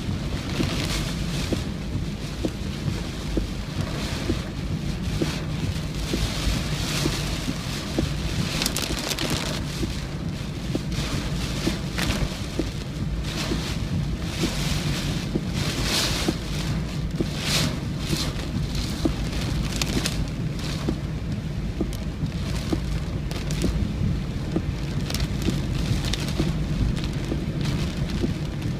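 Typhoon winds and heavy rain: a constant low rumble with gusts that swell and fade every second or two, the strongest about halfway through.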